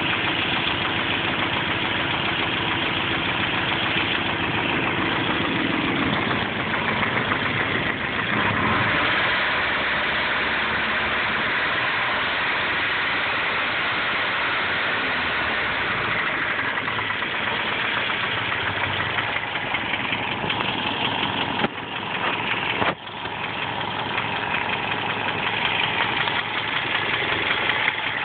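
Nissan KA24 2.4-litre inline-four engine idling with a fast knocking rattle. The owner cannot tell whether it is rod knock, timing chain rattle or a noisy lifter.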